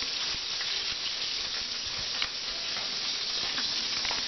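Frozen salmon fillet sizzling in hot oil in a frying pan: a steady hiss with a few small crackles and pops.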